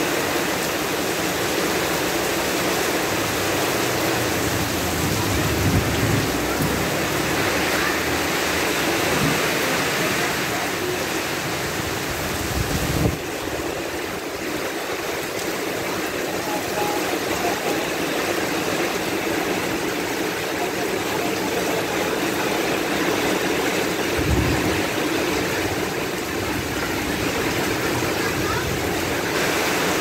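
Heavy rain pouring steadily, an even hiss of rain falling on the road and roofs, with a few brief low rumbles about five, thirteen and twenty-four seconds in.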